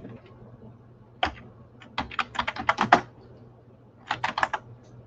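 Typing on a computer keyboard as a web search is entered: a single keystroke about a second in, a quick run of about a dozen keystrokes a couple of seconds in, and a second short run near the end.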